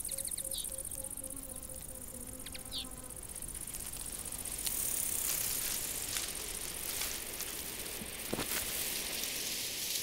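Field ambience: a steady, high-pitched insect buzz, with a few short high chirps in the first three seconds.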